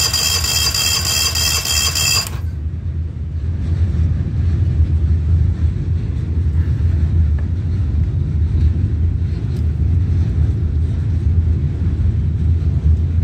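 Yamaha 25 hp four-stroke two-cylinder outboard being cranked over for a compression test on its upper cylinder: a high whine with a pulsing beat that stops about two seconds in. A steady low rumble continues under it and afterwards.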